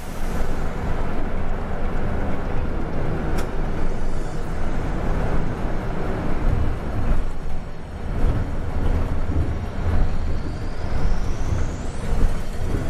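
Steady engine rumble and road noise of a BRT city bus, heard from the front of its cabin as it climbs an overpass ramp.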